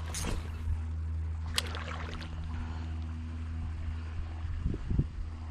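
Spinning reel being cranked steadily to retrieve the lure, a low steady whir, with a couple of light clicks.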